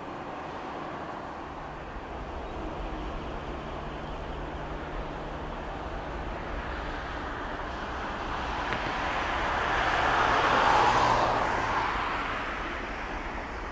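Airbus A320 jet engines at takeoff power during the takeoff roll, heard from behind. A steady rushing engine noise with a low hum swells to a peak about ten seconds in, then eases as the jet moves away.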